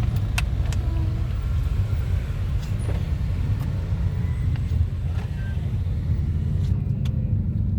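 Steady low rumble of a car in traffic, heard from within the vehicle, with a few faint clicks and knocks over it.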